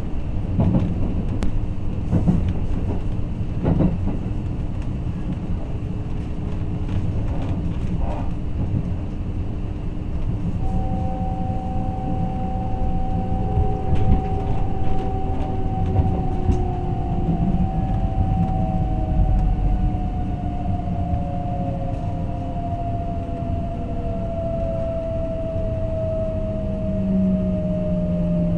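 Interior running sound of a Kintetsu Ise-Shima Liner limited express train: a steady rumble with a few sharp wheel clicks over rail joints in the first few seconds. About a third of the way in, a whine from the traction motors sets in and slowly falls in pitch as the train brakes towards a station stop.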